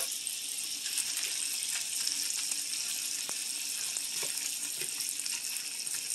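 Pork, peppers and onions sizzling steadily in a hot skillet, a continuous frying hiss, with a few faint scrapes and taps of a wooden spatula stirring them.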